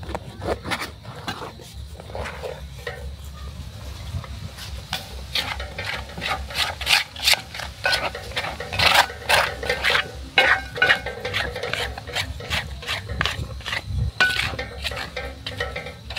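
Thick rice and millet fufu being stirred and turned in a pot: a utensil knocking and scraping against the pot in quick, irregular strokes, louder through the middle.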